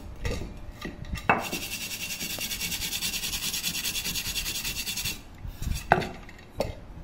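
Steel wool scrubbed rapidly back and forth over a pressure-cooker lid around the valve seat, cleaning the metal in quick, even strokes. A few sharp clicks come about a second in and twice near the end.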